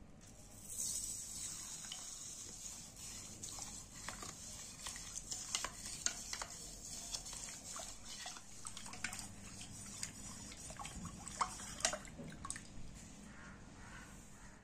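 Sugar poured into warm milk in a stainless steel bowl, then a spoon stirring the milk, with repeated sharp clinks and scrapes of the spoon against the steel as the sugar dissolves.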